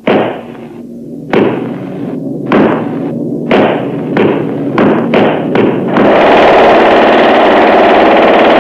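Cartoon sound effects: a heavy hammer striking about eight times at uneven intervals, each blow ringing briefly. About six seconds in, a jackhammer starts rattling steadily.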